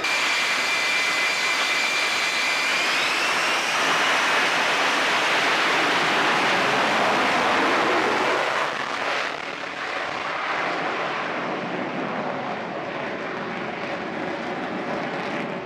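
F-35B Lightning II jet engine (Pratt & Whitney F135): a high whine that rises in pitch about three seconds in, swelling into a loud roar that eases off after about eight and a half seconds.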